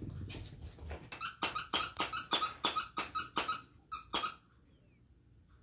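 A dog toy's squeaker squeaking about a dozen times in quick succession, roughly three squeaks a second, as a small Morkie puppy chomps on the plush toy. The squeaking stops about four and a half seconds in.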